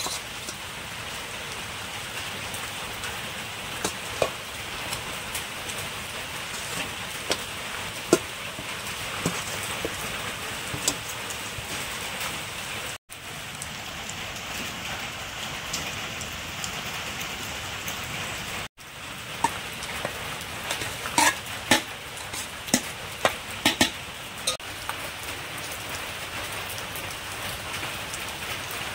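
Food sizzling in hot oil in a cooking pot, a steady hiss broken by scattered sharp clicks of a utensil against the pot, which come thickest from about 20 to 24 seconds in.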